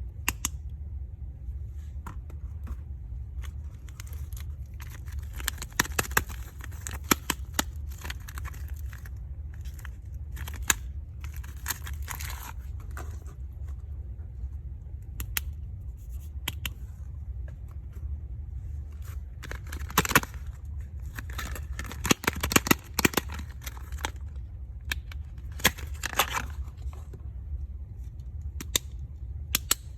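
Soap packaging being unwrapped by hand: plastic wrapping crinkling and rustling in several irregular bursts, with sharp clicks and taps, over a steady low hum.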